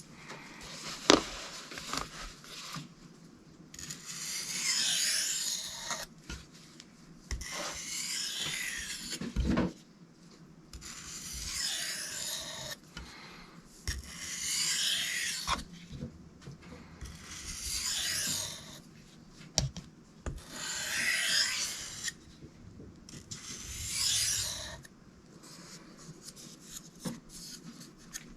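Knife blade drawn in slow, even scraping strokes across an abrasive surface to knock off the burr after sharpening, seven strokes about three seconds apart. A sharp knock sounds about a second in.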